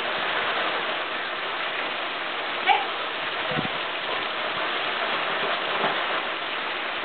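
Steady splashing of water falling from a pool wall's spillway waterfall into the pool, with one short sharp sound about three seconds in.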